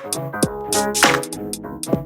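Background music with a steady electronic beat: sharp drum hits about twice a second over held synth and keyboard notes.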